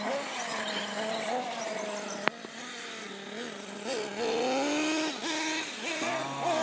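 BSD Racing radio-controlled buggies being driven hard, their motors whining and rising and falling in pitch with the throttle. A single sharp crack comes about two seconds in.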